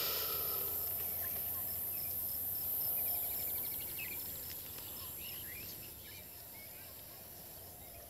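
Insects shrilling steadily at a high pitch, with scattered short bird chirps and a fast pulsing trill a couple of seconds in. The chorus fades gradually over the second half.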